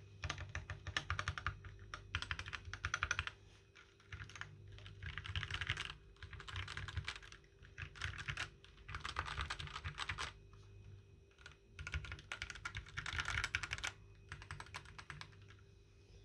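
Typing on a Keychron K6 aluminium mechanical keyboard: quick bursts of rapid keystrokes with short pauses between them.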